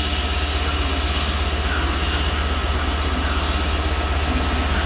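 Class 66 diesel locomotive's two-stroke V12 engine running with a steady, evenly pulsing low throb as the locomotive approaches slowly.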